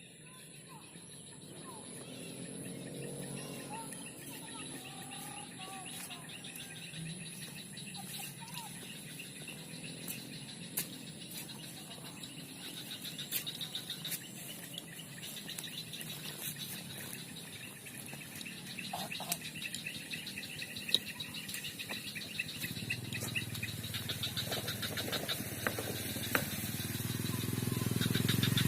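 Small birds chirping and trilling in rapid pulsed runs over a steady high insect drone. A low rumble builds near the end.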